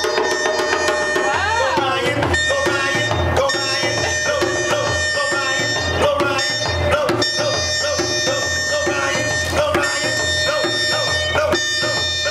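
A small toy wind instrument blown in a steady, buzzy drone that wavers and bends in pitch, over hand drums beaten in a steady rhythm.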